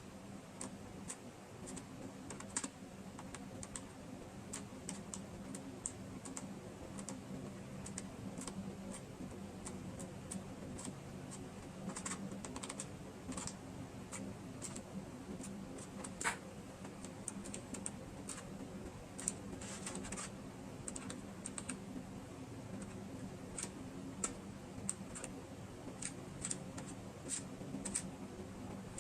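Irregular light clicks and taps of stationery and packaging being handled in an ASMR unboxing, over a faint steady hum.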